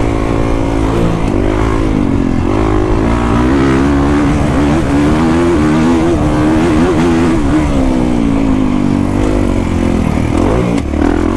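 2021 Kawasaki KX450X single-cylinder four-stroke dirt bike running through an FMF 4.1 RCT slip-on exhaust, ridden continuously, its loud note rising and falling with the throttle.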